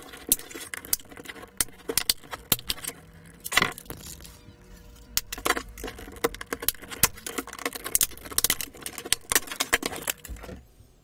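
Black plastic control-panel case being forced open by hand: irregular clicks, snaps and scrapes of plastic as its heat-staked joints give way, with the loudest crack a little over three and a half seconds in.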